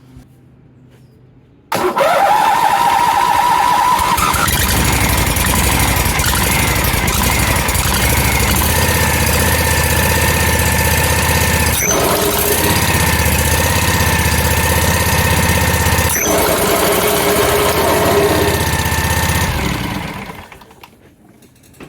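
Scag Freedom Z 48 zero-turn mower's engine starting suddenly, then running steadily for about eighteen seconds before it is shut off and dies away near the end. There are two brief clicks during the run.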